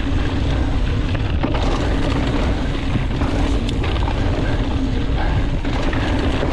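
Wind rushing over the camera microphone and a mountain bike's knobby tyres rumbling over a dirt singletrack at speed, with a steady hum underneath and a couple of sharp clicks from the bike or trail.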